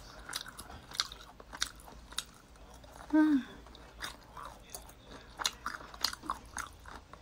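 Close-miked chewing of grilled pork belly: small wet clicks and smacks of the mouth. A little after three seconds in comes a short hummed 'mm', falling in pitch.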